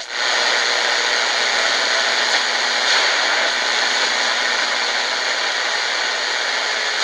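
Steady shortwave static hissing from the Tecsun GR-138 portable radio's speaker, with a faint steady tone underneath.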